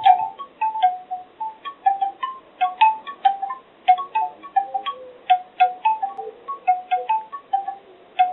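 Bamboo wind chimes knocking in the wind: hollow wooden tubes clacking together at irregular moments, several short clonks a second, each with its own hollow pitch.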